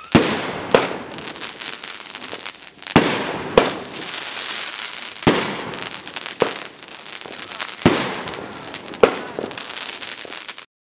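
Aerial fireworks bursting: about eight sharp bangs, often in pairs, with continuous crackling and hissing between them, cutting off suddenly near the end.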